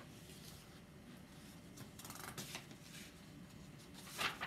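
Soft paper rustles from a picture book being handled and its page turned: a few brief rustles over faint room tone, the strongest near the end.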